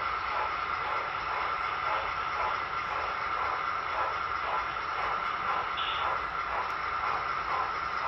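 HO scale model trains running past on the layout: a steady hum with a rhythmic pulse about three times a second, and a brief higher tone about six seconds in.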